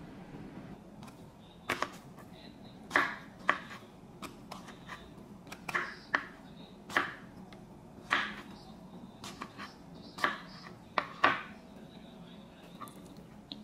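A dozen or so sharp knocks and clicks at uneven intervals, as of hard objects being set down or struck, over a low steady background.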